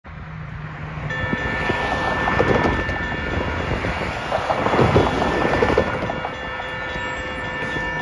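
Safetran Type 1 electronic crossing bell (e-bell) sounding at an activated railroad crossing, starting about a second in as a steady ringing tone, over a loud low rumble.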